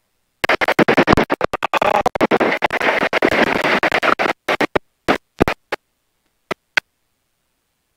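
Rough scratching and rubbing right on the camera's microphone, dense for about four seconds, then a handful of separate knocks and scrapes: handling noise.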